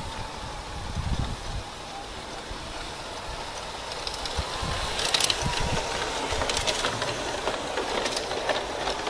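G-scale LGB model train running on garden track: a steady motor hum with wheels clicking over the rail joints, getting louder from about four seconds in as the train comes close and passes.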